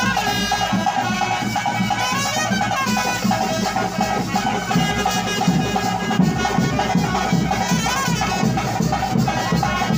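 Live Tulu ritual music: a double-reed pipe plays a wavering, bending melody over a steady reedy drone, with drums beating underneath.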